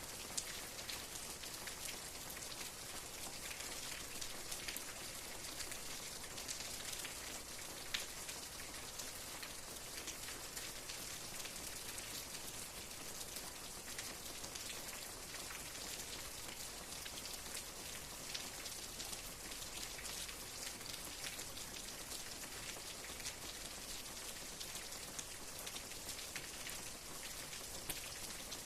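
Steady rain falling, a continuous hiss with many individual drops pattering on a surface and an occasional louder drop.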